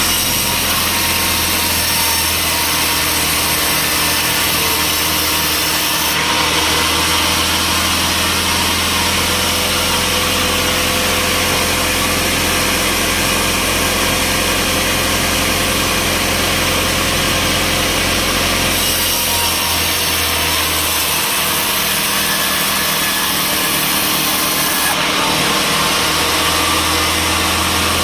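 Sawmill machinery running steadily: a loud, continuous mechanical noise over a constant low hum, its high hiss shifting a few times.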